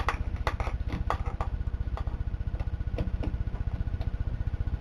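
Light metallic clicks and taps of snap ring pliers working at the rear output shaft snap ring inside a Ford C4 automatic transmission case, clustered in the first second and a half and again around three seconds. A steady low pulsing hum runs underneath throughout.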